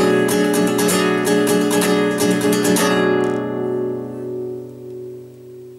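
Nylon-string acoustic guitar playing the closing bars of a song: a run of strummed and picked chords, then about three seconds in a final chord left ringing and slowly fading out.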